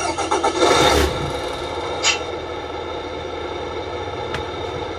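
Tamiya Scania 770S RC truck's sound unit playing a V8 engine start-up: it revs loudly in the first second, gives a short sharp hiss-like burst about two seconds in, then settles into a steady idle.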